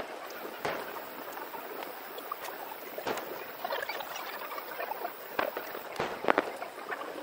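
Fireworks display heard in fast-forward: firework reports cut down to short, sharp cracks over a dense, high-pitched crackling background. A few cracks stand out, the loudest cluster about six seconds in.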